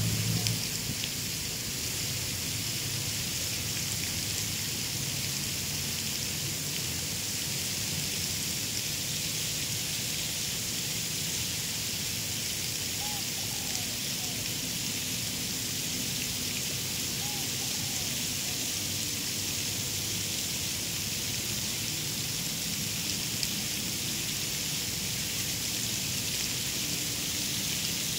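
Steady open-air park background: an even high hiss with a faint low hum underneath, and a few faint short chirps about halfway through.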